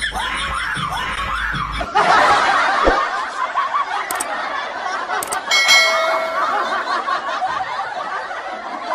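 Laughter from many people at once, a laugh track that swells about two seconds in and runs on. Near the middle come two sharp clicks and then a bell-like ding, the sound of a subscribe-button animation.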